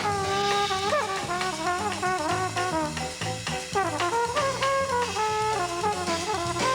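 Jazz music: a brass horn plays a melody that bends and slides between notes, over a bass line and drums.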